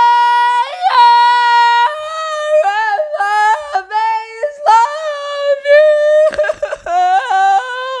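A boy singing wordlessly in a high falsetto: a long held note, a yodel-like jump up in pitch about a second in, then a run of short wavering notes.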